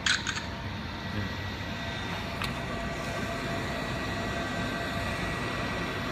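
Steady mechanical background hum and hiss, with a short burst of sharp clicks right at the start and one faint click about two and a half seconds in.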